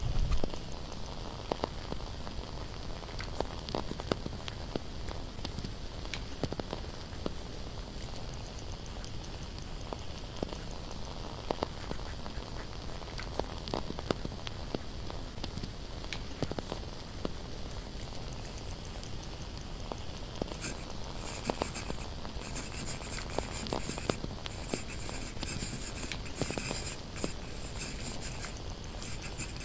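Candle crackling: small irregular clicks and pops over a soft steady hiss. About twenty seconds in, a pen starts scratching across paper in quick, busy strokes that carry on to the end.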